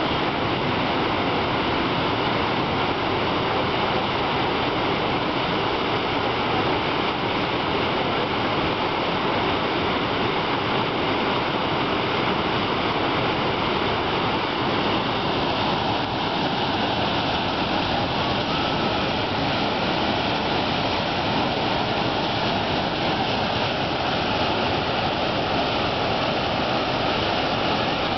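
Whitewater of fast tidal rapids rushing steadily.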